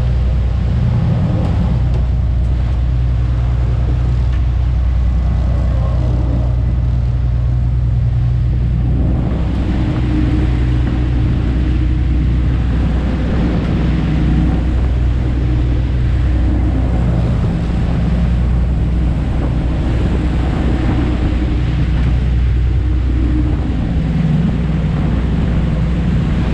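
A large fishing boat's engine running steadily, a constant low hum with a rushing noise over it.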